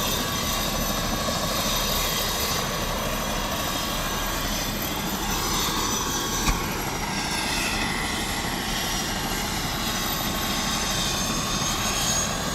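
Helicopter turbine engine and main rotor running steadily on the ground: a constant rushing noise with a high steady turbine whine, and a single sharp click about halfway through.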